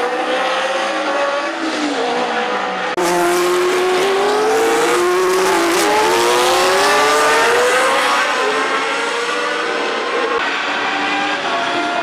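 Historic Formula One car engines at high revs, accelerating hard with the pitch climbing and dropping back at each upshift. There is an abrupt change in the sound about three seconds in.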